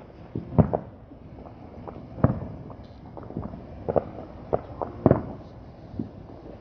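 Fireworks going off: about seven sharp bangs at uneven intervals, the loudest a double bang under a second in, one about two seconds in and one about five seconds in.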